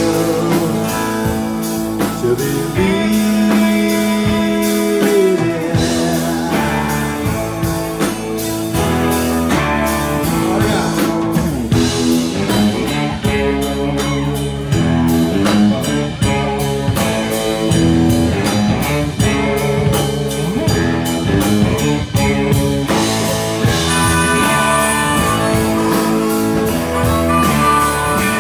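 Live rock band playing an instrumental passage on acoustic and electric guitars, bass guitar, keyboard and drums, with a harmonica coming in near the end.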